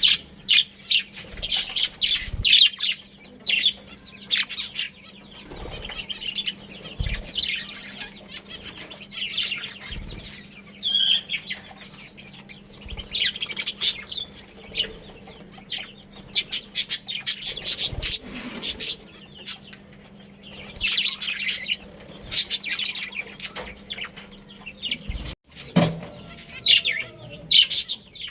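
A flock of budgerigars chirping and chattering in repeated bursts of high chirps, with a few low thumps. A steady low hum lies under them and stops a few seconds before the end.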